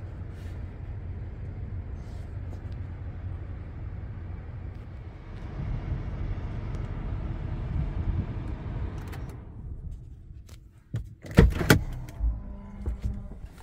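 Ram pickup truck's engine running, heard as a steady low rumble inside the cab, which stops about nine and a half seconds in. A few seconds later come several sharp clicks and knocks, the loudest sounds, with smaller clatter after.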